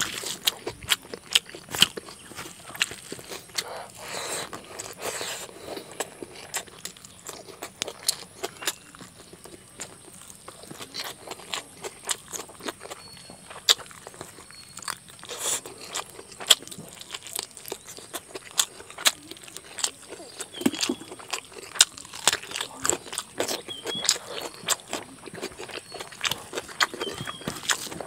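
A person chewing and smacking while eating rice and chicken curry by hand: a steady stream of short, sharp mouth clicks and smacks.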